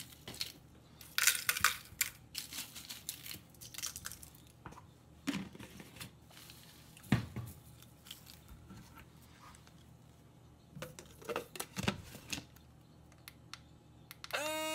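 Dried red chili peppers crinkling and rattling as they are tipped and pushed into a plastic blender cup, with scattered light clicks. Near the end a small portable blender's motor starts with a steady hum.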